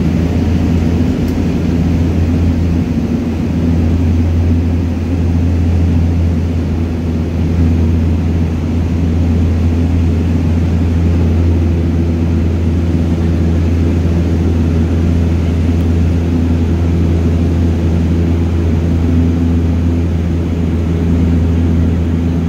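Cabin noise inside a de Havilland Canada DHC-6 Twin Otter on landing approach: the steady low drone of its two PT6A turboprop engines and propellers, with a few humming tones over it. One more tone joins about eleven seconds in.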